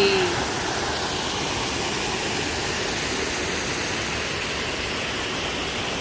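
Triberg Waterfall cascading over mossy rocks: a steady, even rush of falling water.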